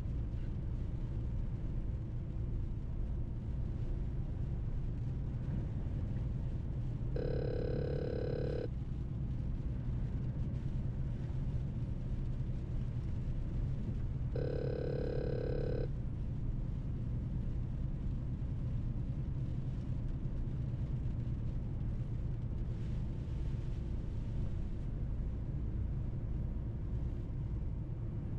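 Steady low drone of a Mercedes truck driving on the road. Two electronic beeps, each about a second and a half long, sound about seven seconds in and again about seven seconds later.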